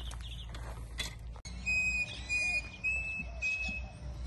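Four clear whistled notes at the same high pitch, each about half a second long, starting about a second and a half in, over a low steady outdoor rumble.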